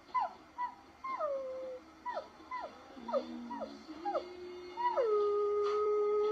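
A pet animal crying out in a clip: a quick series of short calls that each slide down in pitch, then, about five seconds in, one long howl held at a steady pitch.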